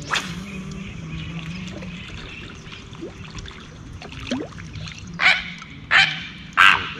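Water trickling and lapping at a boat's hull over a steady low hum. A few short, sharp sounds come about once a second near the end.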